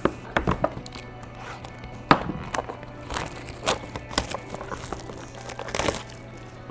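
Sealed cardboard hobby boxes of 2012 Prime football cards being handled by hand: a run of irregular taps and knocks as boxes are picked up and set down, with some crinkling of plastic wrap.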